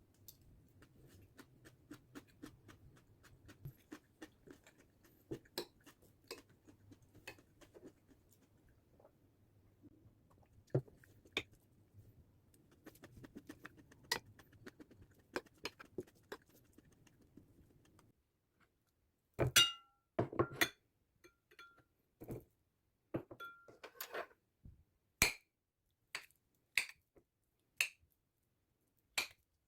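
Dishes and cutlery clinking during cooking: faint small clicks over a low background hum, then, after a break about two-thirds of the way in, a run of sharper, louder clinks, some ringing briefly.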